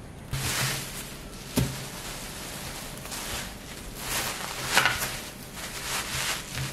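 Thin plastic bags rustling and crinkling in irregular bouts as they are smoothed flat and folded, with one sharp knock about a second and a half in.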